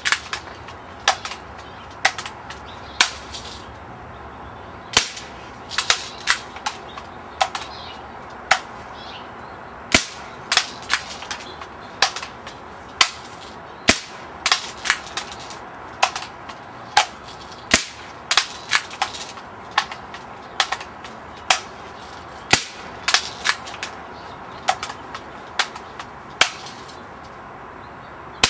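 Camera shutter clicking during a photo shoot: sharp single clicks at an irregular pace, sometimes two or three in quick succession, over a steady background hum.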